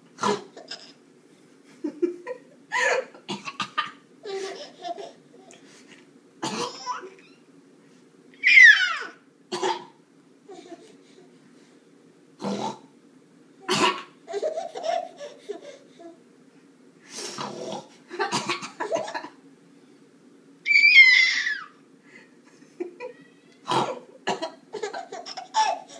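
A woman coughing in short bursts, over and over with pauses between, and a baby laughing at it, with two high, falling squeals of laughter.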